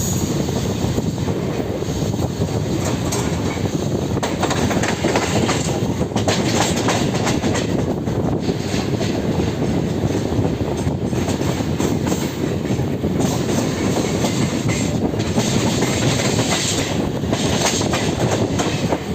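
Mumbai local suburban electric train running steadily, its wheels clattering over the rails with a dense stream of clicks under a continuous rumble.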